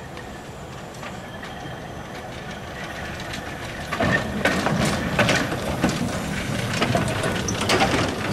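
Narrow-gauge steam locomotive running slowly towards and past, growing louder, then clanking and knocking repeatedly from its wheels and rods over the rail joints and pointwork from about four seconds in.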